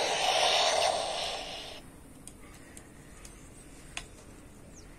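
Electronic sound effect from a Thor action figure's plug-in sound pack: a burst of hissing noise through a small toy speaker that cuts off about two seconds in. A single sharp plastic click comes near the end.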